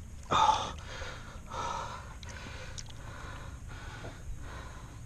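A person's heavy breathing close to the microphone: a loud breath just after the start and another about a second and a half in, then quieter.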